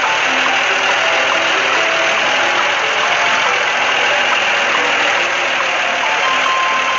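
A construction machine's engine running steadily, a loud, even mechanical noise with faint short musical notes underneath.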